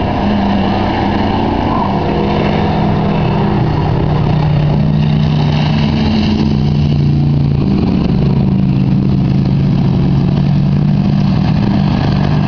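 Several pickup truck engines running at racing speed on a dirt track, their engine notes shifting in pitch as the trucks lift off and accelerate through the laps.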